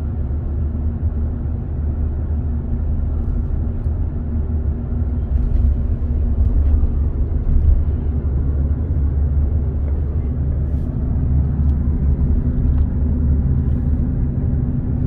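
Car driving, with a steady low rumble of engine and road noise.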